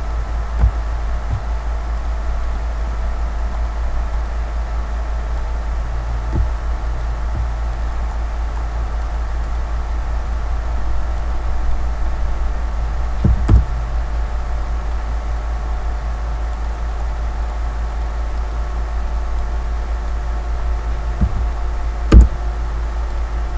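Steady low electrical hum from the recording setup, with a few faint steady higher tones over it. A handful of short knocks and clicks from the mouse and keyboard come through, the loudest about halfway through and again near the end.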